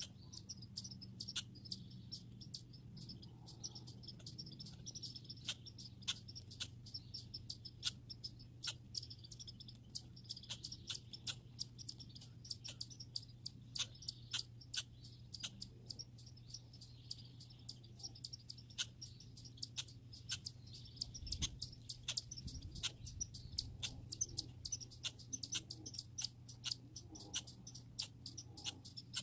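Squirrels making sharp, irregular high-pitched clicks and chips, a few a second, over a steady high hiss.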